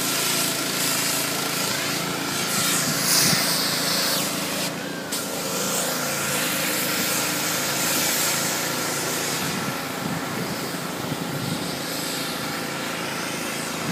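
Steady hum of a running motor, with a constant machine tone over a background of outdoor noise.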